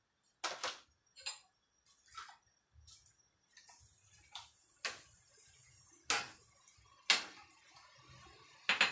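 A spoon and colander knocking against a stainless steel cooking pot: about ten sharp, irregular taps as mustard greens are tipped in and pushed down, with a louder clatter at the very end.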